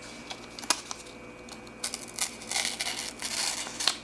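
A knife blade cutting through a thin material, testing the sharpness of an unsharpened, out-of-the-box blade: a click, then a few seconds of irregular scraping cutting noise.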